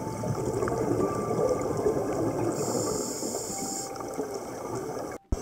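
Scuba regulator exhaust bubbles gurgling and crackling underwater as divers breathe during a slow ascent, with a hiss lasting about a second midway and a brief break in the sound just before the end.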